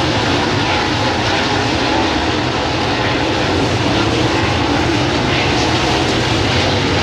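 A field of dirt late model race cars running at speed around a dirt oval. Their big V8 engines make a loud, steady, continuous engine noise.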